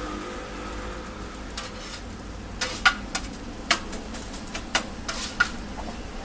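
Egg crepes sizzling on a flat-top griddle, with a metal scraper clicking and scraping on the steel plate: about eight sharp clicks, starting a little before halfway.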